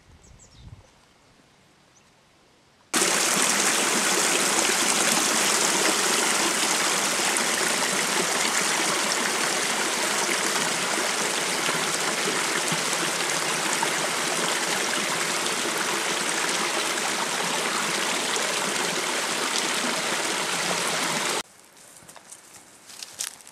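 Running water of a mountain stream, a steady rush that cuts in suddenly about three seconds in and stops abruptly a couple of seconds before the end.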